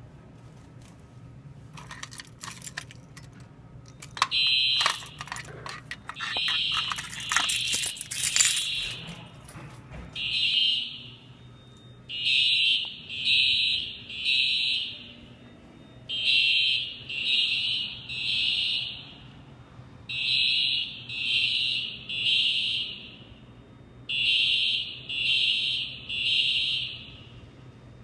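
Fire alarm horns sounding a high beep in the temporal-three evacuation pattern, three beeps about a second apart, then a pause, repeating. The alarm follows a manual pull station being activated. During the first several seconds there is metallic clicking and key jingling as the alarm starts.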